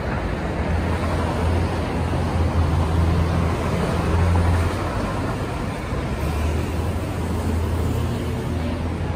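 Road traffic at a city intersection: cars passing, a steady low rumble of engines and tyres.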